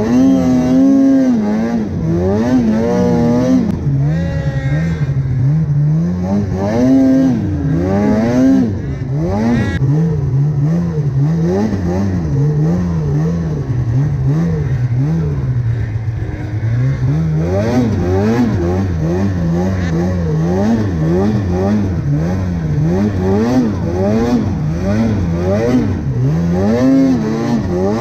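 Polaris 850 Khaos snowmobile's two-stroke engine revving up and down over and over as the throttle is worked, its pitch rising and falling about once a second.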